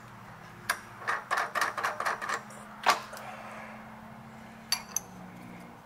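Steel clamping hardware handled on a milling machine's rotary table. A run of light metal clicks and clinks comes in the first half, one sharper clink about three seconds in, and two more clicks near the end, over a faint steady hum.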